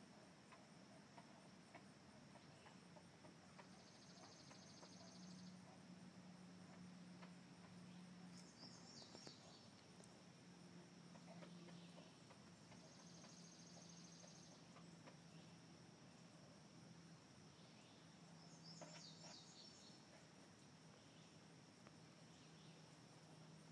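Faint outdoor ambience: small birds calling, with a dry rapid trill twice about nine seconds apart and two short falling chirps, over a steady high insect whine and a low hum.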